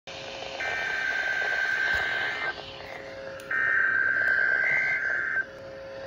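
EAS/SAME digital header data bursts of a NOAA Weather Radio Required Weekly Test coming through a Midland weather alert radio's speaker: two harsh, buzzy data bursts of about two seconds each, a second apart, over radio hiss with a low hum in the gaps.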